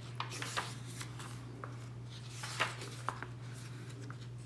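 Pages of a thin paper traveler's notebook insert being turned and smoothed by hand: a scattered series of soft paper flicks and swishes, over a steady low hum.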